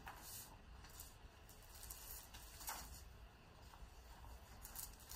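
Faint scratching of a broad-edged calligraphy pen nib on paper, a few short strokes, over quiet room tone.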